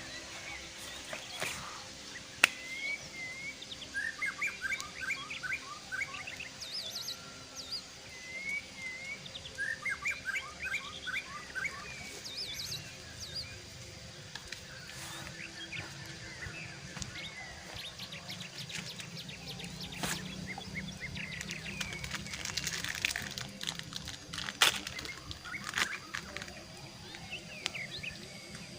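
Wild birds singing: repeated rapid series of short chirps and whistled notes over a steady background hum, broken by a few sharp clicks, the loudest about two and a half seconds in and again near the end.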